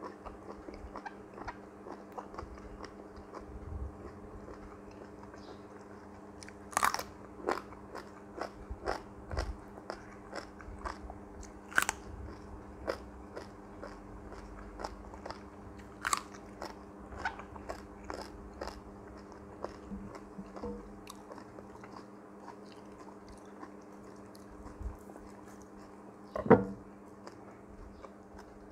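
A person chewing and biting grilled octopus tentacles, with many small wet chewing clicks and a few sharper crunchy bites, the loudest about 26 seconds in. A steady low hum runs underneath.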